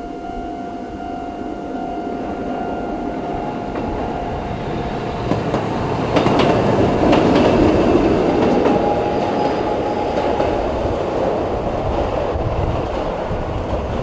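Level-crossing alarm ringing with its slow-tempo clang. About five seconds in, a Toden Arakawa Line tram runs across the crossing, its wheels rumbling and clicking, loudest around seven to eight seconds in, then fading.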